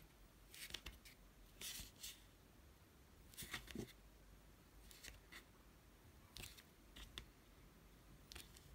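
Faint, short scraping strokes of a plastic modelling tool dragged along the grooves of a ball of soft air-dry clay, deepening them. About a dozen brief scratches come at irregular intervals, with quiet between them.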